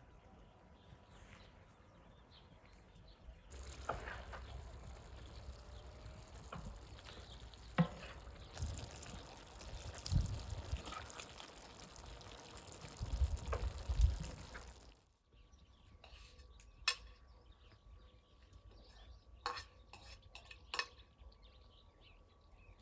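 Grated beetroot frying in a large pan, sizzling while a metal ladle stirs and scoops it, with sharp scrapes and knocks against the pan. The sizzling runs from a few seconds in until it cuts off suddenly about two-thirds of the way through, leaving a quieter stretch with scattered clicks.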